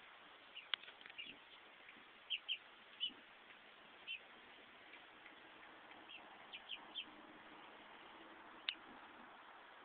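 Chickens giving short, high cheeps, scattered and often in pairs, with a couple of sharp ticks.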